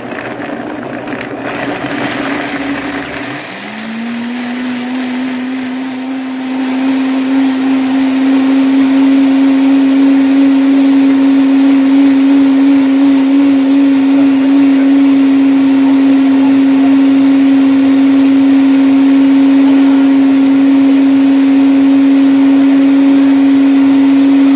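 Countertop blender puréeing cashews with water into cashew ranch. The motor's pitch rises about three seconds in, then holds a loud, steady whine that grows a little louder a few seconds later as the mixture turns smooth.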